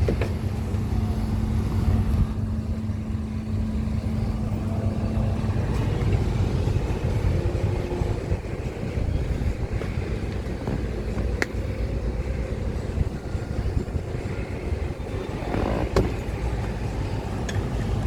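2018 Buick Cascada's 2.0-litre turbocharged four-cylinder idling steadily, with a low even rumble. A thin hum sounds over it and stops about six seconds in, and there are a few light clicks.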